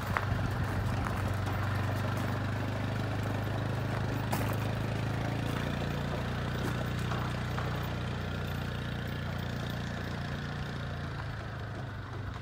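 An engine running steadily with a low hum that eases off slightly towards the end, with a single sharp click about four seconds in.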